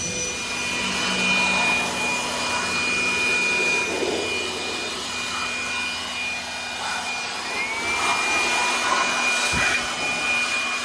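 Vacuum cleaner running steadily while cleaning a car's interior, a rushing sound with a high whine. About seven seconds in, a second whine rises in pitch and settles on the same note, and near the end there is a brief low bump.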